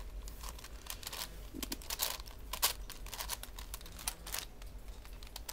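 Plastic clicking of a V-Cube 7x7x7 puzzle cube's layers being turned by hand, many short clicks at uneven spacing.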